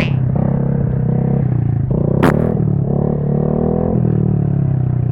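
Honda Grom's single-cylinder engine running under throttle while riding, its pitch stepping up and down, with one sharp click a little over two seconds in.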